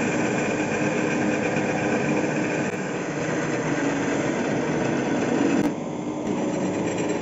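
Small TU150 benchtop CNC lathe running a program: a steady motor whine with machining noise as the tool turns a wooden workpiece. The sound dips briefly near the end.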